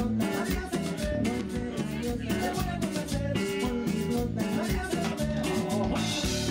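Background music: upbeat Latin tejano band music with a steady beat.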